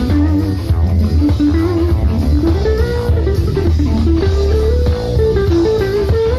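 Jazz-fusion band playing live: a melodic lead line steps up and down in the middle register over heavy electric bass and drum hits.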